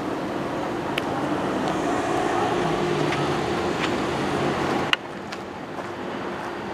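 A vehicle running with a steady hum over a traffic-like rumble. There is a sharp click just before five seconds in, after which the sound is quieter.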